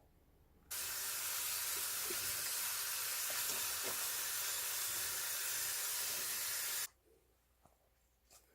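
Kitchen tap running, a steady rush of water that is turned on about a second in and shut off abruptly about six seconds later.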